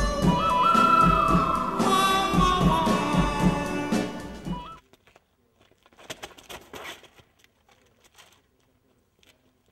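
Background music, a held melody line over a steady beat, that cuts off suddenly about five seconds in. Near silence follows, with only faint scattered rustles and clicks.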